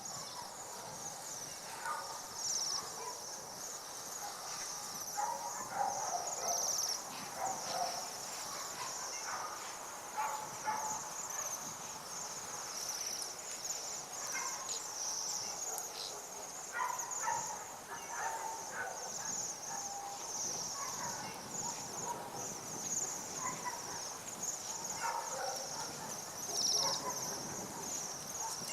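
Many small songbirds calling together: a continuous high-pitched twittering, with scattered short chirps throughout.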